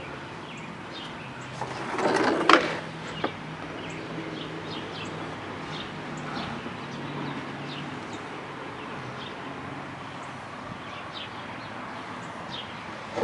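Birds chirping now and then over a low background hum, with a brief rustle and two sharp clicks about two to three seconds in.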